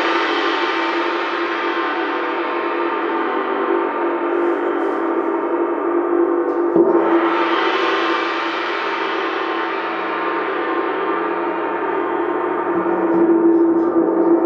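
A 70 cm (28 in) Centent Feng wind gong rings with a dense wash of overtones. It is struck again with a soft mallet about seven seconds in; the high end flares up and then slowly dies down. Near the end it swells once more under another soft stroke.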